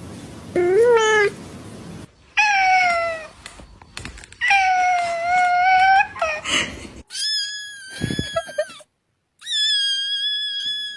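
Domestic cats meowing: five separate drawn-out meows, the last two higher-pitched and held level, with the background changing abruptly between them as one clip cuts to the next.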